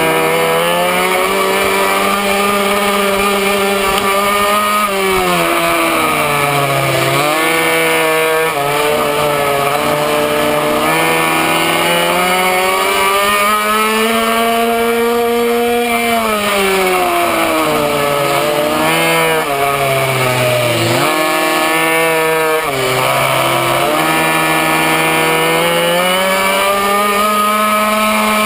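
Minimoto's small two-stroke engine at racing revs, heard from on board. Its pitch drops sharply several times as the throttle is shut for corners, then climbs back as it is opened again.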